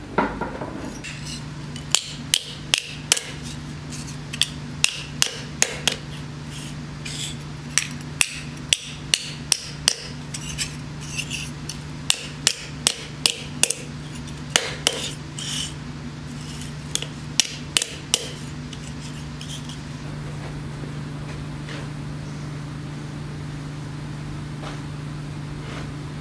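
A hammer striking small pieces of thin sheet steel on an anvil: quick runs of sharp, ringing metallic taps, two or three a second with short pauses, that stop about two-thirds of the way through. A steady low hum runs underneath, and a single thud comes right at the start.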